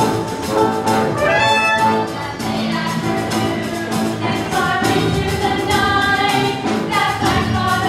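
Live pit band music with brass instruments playing a musical theatre number.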